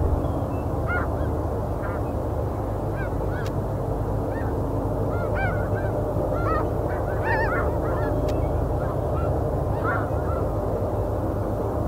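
Flock of snow geese calling: scattered short, high honks, busiest around the middle, over a steady low rumble.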